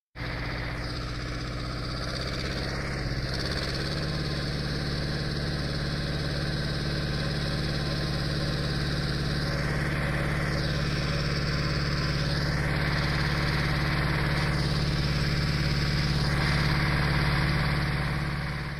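Boat engine running steadily with an even hum. It grows slowly louder, then fades out near the end.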